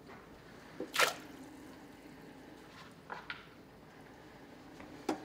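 Handfuls of chopped celery dropped into a water-filled roaster pot of chicken necks and herbs, splashing: one sharp splash about a second in, then smaller plops around three seconds and near the end.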